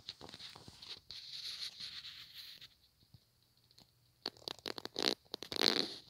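A plastic door-lock drilling jig being handled against a wooden door: scraping and rubbing of plastic on wood with scattered clicks, then a burst of sharp clicks and rattles in the last two seconds. No power tool runs.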